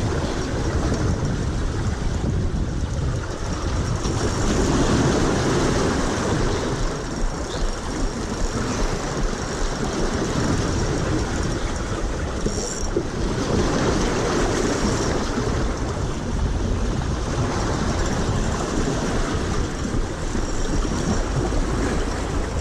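Gusting wind buffeting the microphone over sea surf washing against the rocks: a loud, steady rushing noise with a deep rumble that swells and eases.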